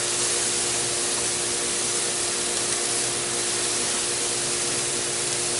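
Steady spring rain falling, an even hiss, with a faint steady hum underneath.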